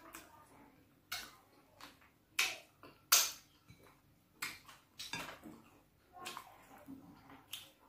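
Close-miked eating sounds: wet lip smacks and fingers being licked clean of soup, with fingers scraping the soup from a bowl. The sounds come as short, sharp, irregular smacks about once a second.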